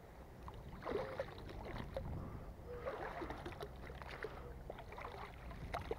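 Magnet fishing magnet and its catch being hauled up out of canal water on a rope: faint, irregular splashing and sloshing with small clicks.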